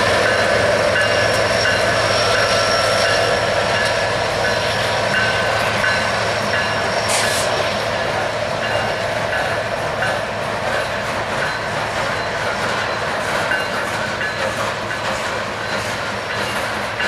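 Freight train passing close by, pulled by diesel locomotives. It makes a continuous heavy rumble that slowly fades as the locomotives pull away, with a steady high squeal from the steel wheels. From about halfway through, the wheels click over the rail joints.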